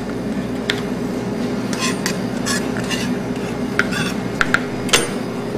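A kitchen knife clicking and scraping on a cutting board around a pile of finely chopped shallot, with a few sharp taps near the end, over a steady low hum.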